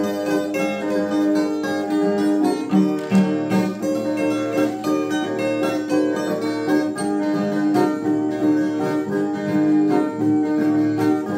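Instrumental break played on a ten-string Brazilian viola and a small acoustic guitar: a plucked melody over strummed chords, with no singing.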